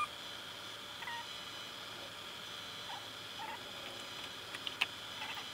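Light clicks and a few faint short squeaks of hands refitting a rubber air-intake hose and clamp in a car's engine bay, with one sharp click a little before the end.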